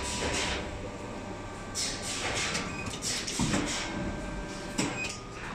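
Vertical plastic injection molding machine with its motor running, a steady hum, broken by several short hisses and a low clunk about three and a half seconds in.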